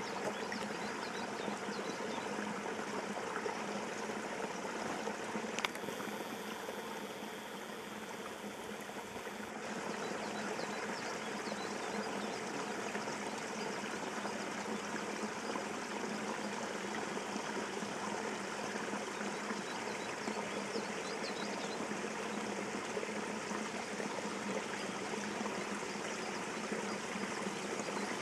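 Steady trickling and running of water, as at a beaver dam, with a click about six seconds in and a few seconds slightly quieter after it.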